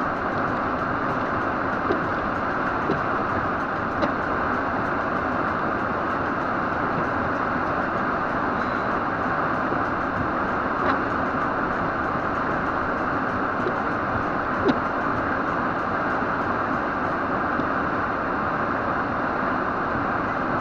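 Steady road and wind noise inside a moving car, with a few faint ticks now and then.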